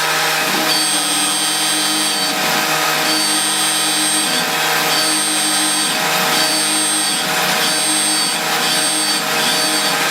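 A CNC machine cutting with a loud, steady mechanical noise. A high tone and a low sweep come and go over and over, about once a second.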